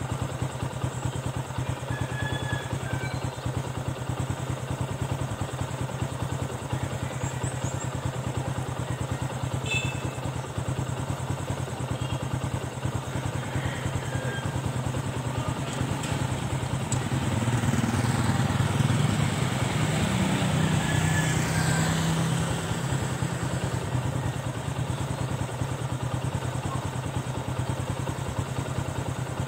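Roadside traffic: a steady low engine hum, with a motor vehicle passing and growing louder between about two-thirds and three-quarters of the way through, then fading.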